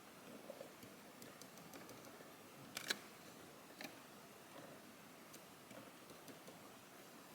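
Near silence with a few faint small clicks, the clearest a quick double click about three seconds in and a single one about a second later.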